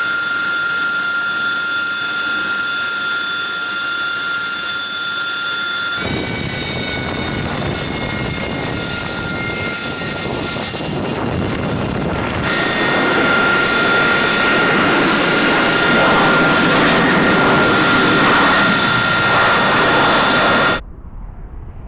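AV-8B Harrier II's Rolls-Royce Pegasus turbofan running as the jet taxis: a steady high-pitched whine of several tones over a jet rush. The sound changes abruptly about six and about twelve seconds in, the rush getting louder each time, then drops suddenly near the end.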